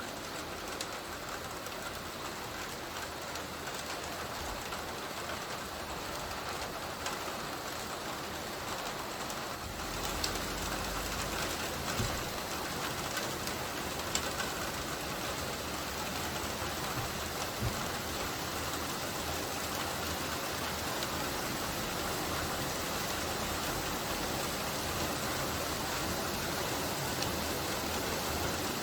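Steady light rain falling, an even hiss of drops pattering, a little louder from about ten seconds in.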